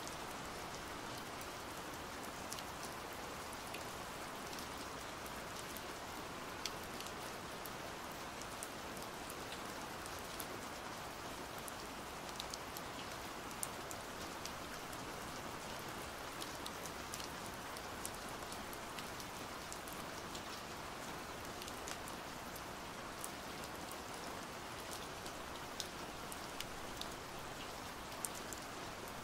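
Pouring rain: an even hiss with scattered sharp taps of single drops.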